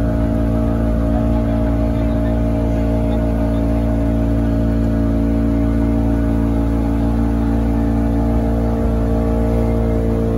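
Motorboat engine running at a steady speed under way, with an even drone that does not change pitch, over the rush of water past the hull.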